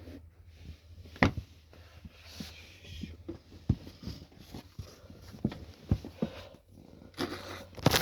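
Scattered knocks and bumps with rustling as a person clambers up onto a freezer, the loudest knock about a second in and a cluster of bumps near the end.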